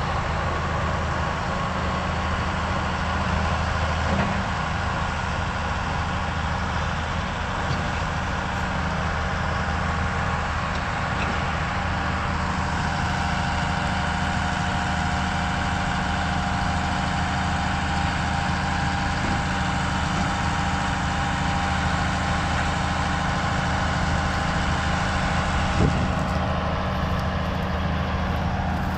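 Engine of a large farm machine running steadily at constant speed, with a low hum under a dense mechanical whir.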